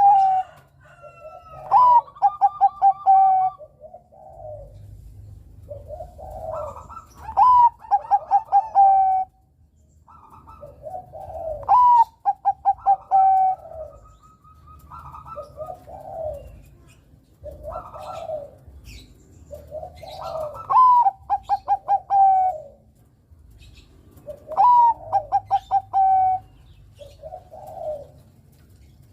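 Bangkok-type perkutut (zebra dove) cooing: a loud phrase repeats every four to five seconds, each a rising note followed by a fast run of clipped coos, with softer coos in between. Faint high chirps sound in the background.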